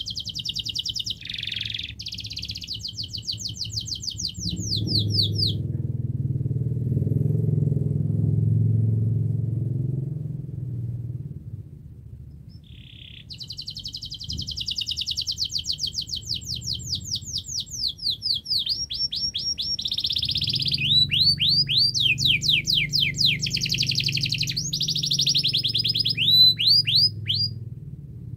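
Domestic canary singing long trilled phrases of rapid repeated notes and quick downward sweeps: one bout of about five seconds, a pause of about eight seconds, then a longer bout to near the end. A low steady hum runs underneath, loudest during the pause.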